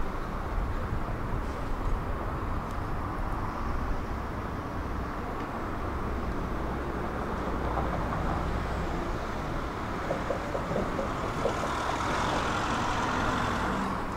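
Tram running along its track: a steady rumble of wheels and running gear, with a hiss building up near the end.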